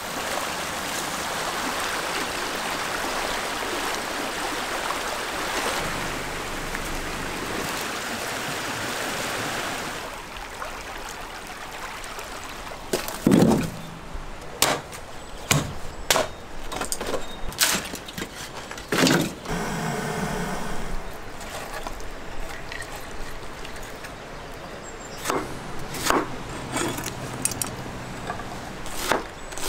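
A mountain stream rushes steadily for about ten seconds. Then come scattered knocks and clatters of firewood being handled at a metal grill, and near the end a knife chops on a wooden cutting board.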